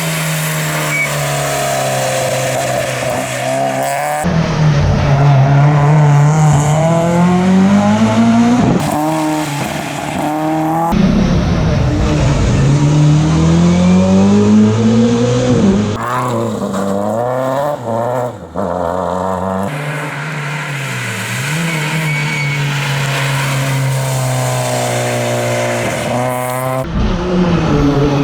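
Rally car engines revving hard and dropping back as they accelerate and change gear on a stage. The sound changes abruptly every few seconds as one car gives way to the next.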